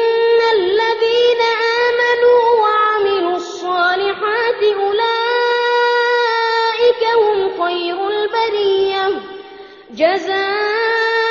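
A single high voice chanting Quranic verses in Arabic, holding long melodic notes with ornamented glides. It pauses for breath about nine seconds in, then resumes.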